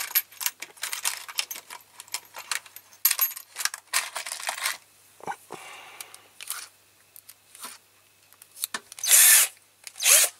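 Metal drill bits clicking and rattling as a bit is picked out and fitted into the keyless chuck of a power drill. Near the end come two short, loud bursts as the drill's chuck is spun.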